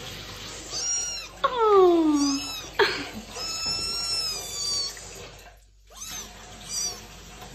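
A wet kitten standing in a sink of bath water meows plaintively about half a dozen times. The loudest cry, about a second and a half in, falls in pitch, and a long drawn-out cry comes in the middle.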